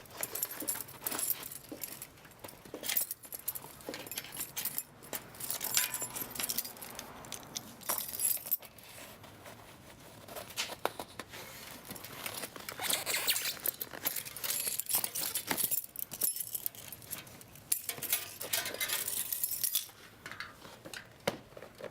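A tire lever scraping and clicking against a bicycle wheel rim as it is run around the edge, seating the tire bead back onto the rim. The scrapes and clinks come unevenly, with short pauses between them.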